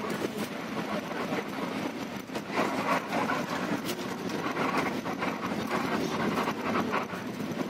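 Interior noise of an intercity bus on the move: the engine running under steady road noise, with frequent small rattles and knocks from the cabin.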